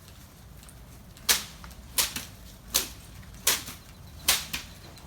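Bush branches being whacked hard: five sharp strikes about three-quarters of a second apart, each followed by a brief rustle of leaves.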